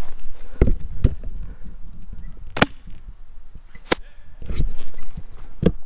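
Two sharp airsoft gun shots about a second and a half apart, mixed with low thuds and rustling from moving over the forest floor.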